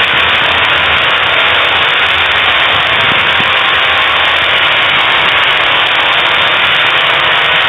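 Loud, steady electronic static-like noise with no clear pitch, played as a "vibrate" sound effect, which the uploader takes for a phone speaker water-remover sound.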